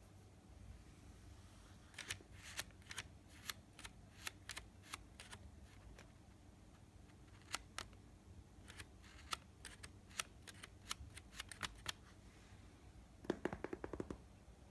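Faint, irregular sharp clicks, some in quick runs, ending in a brief rapid rattle of clicks near the end.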